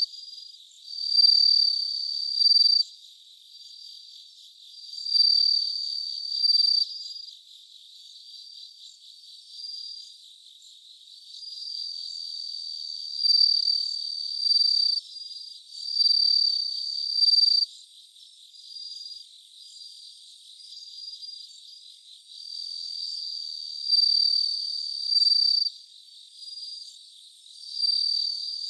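Japanese bell crickets (suzumushi) singing: a high, clear ringing trill that comes in bouts of a second or two, rising and falling in loudness with short pauses between, over a faint steady insect background.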